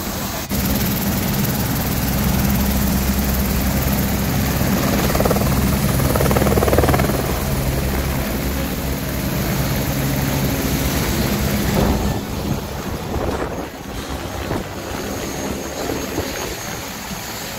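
Helicopter flying low nearby: a steady drone of rotor and turbine, loudest about a third of the way in and weaker after about twelve seconds as it moves off overhead.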